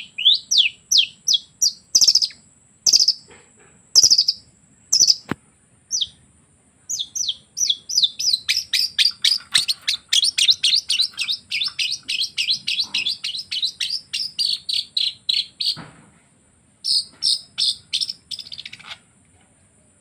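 Long-tailed shrike (cendet) singing, mimicking canary and lovebird phrases. It starts with spaced, sharp down-slurred notes, then goes into a long, fast run of notes, about four or five a second. A short run follows near the end.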